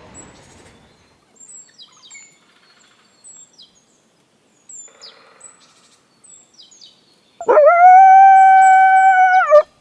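Short, high, falling bird chirps, then a single loud howl that bends up at its start, holds steady at one pitch for about two seconds and drops away at the end.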